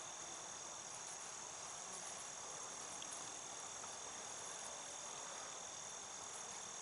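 Faint, steady, high-pitched insect trilling that holds unchanged throughout, over a soft outdoor hiss.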